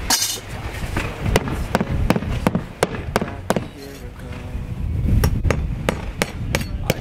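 Hammer nailing metal brick ties to the sheathed wall: a run of sharp strikes, about three a second, with a pause a little past the middle. Wind rumbles on the microphone underneath.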